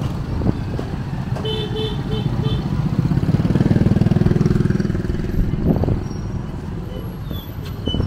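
A motorbike engine running close by, swelling to its loudest in the middle. Just before that, a horn gives about five quick short beeps.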